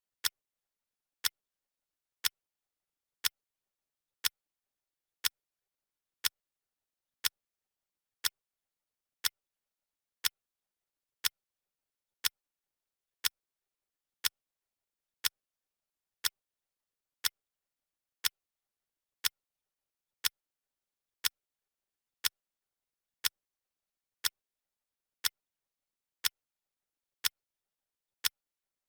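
Clock ticking sound effect: one sharp tick every second, evenly spaced, with dead silence between ticks.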